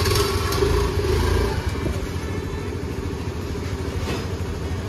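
Small scooter engine running at idle, a little louder for the first second and a half and then steady.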